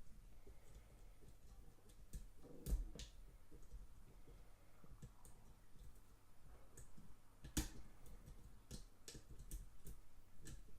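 Faint metallic clicking and scraping of a pick wire and tension tool working inside a non-pipe padlock, with two louder clicks about three and eight seconds in.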